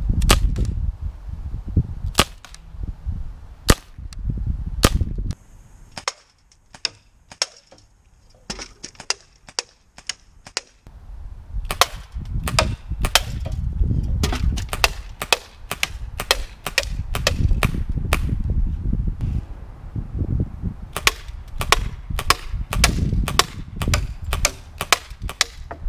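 Daisy Model 74 CO2 BB rifle firing a long string of sharp cracks. A few shots come spaced out at first, then it falls quiet for several seconds, then rapid runs of shots follow, several a second at times.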